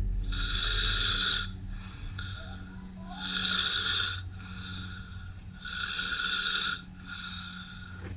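Recorded snoring sound effect played through a small amplifier and speakers on an Adafruit sound board. It repeats about every two and a half to three seconds, three times and a fourth starting near the end, over a steady low hum.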